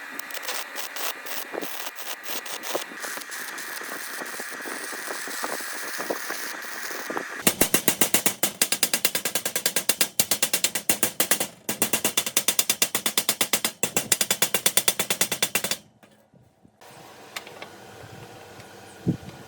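Mechanical workshop noise: first a steady whine with scattered clicks, then about halfway in a long run of loud, rapid, evenly repeated strikes that stops abruptly, followed by a quieter steady hum.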